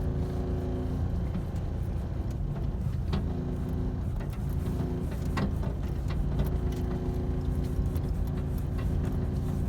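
A motor vehicle's engine running steadily, heard from inside the vehicle while it drives. There are a few sharp clicks and light rattles.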